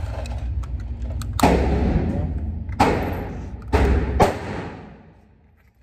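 Four gunshots, each followed by a short echoing tail: one about a second and a half in, one near three seconds, then two in quick succession around four seconds.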